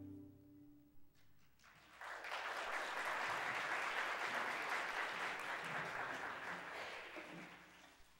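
Final chord of a string orchestra dying away, then an audience applauding, starting about two seconds in and fading out near the end.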